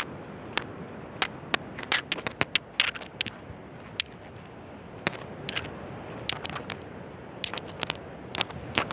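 Steady rush of sea and wind with many irregular sharp clicks and crackles over it.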